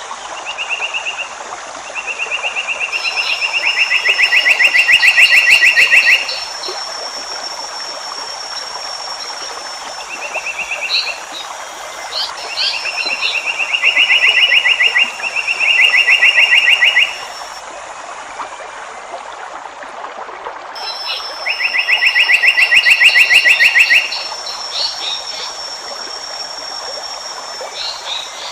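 Asian paradise flycatcher (seriwang) calling in rapid buzzy trills, each lasting a few seconds and swelling in loudness, with three long bouts and several shorter ones. Under them run a steady high whine and a constant hiss.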